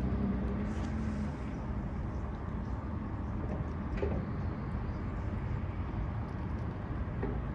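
Steady low engine-like rumble, with a hum that stops about a second in and a faint tick near the middle.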